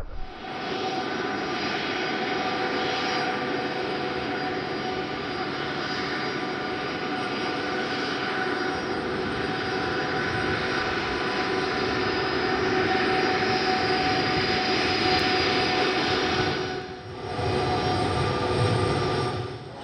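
Tupolev Tu-204C freighter's twin turbofan engines whining steadily at low taxi power, with several steady tones in the whine. The sound dips briefly about three-quarters of the way through, then returns.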